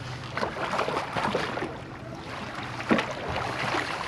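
Small outboard kicker motor running steadily at trolling speed, with wind on the microphone and water against the hull. A few short knocks and splashes come through, the loudest about three seconds in, as a fish is brought to the landing net.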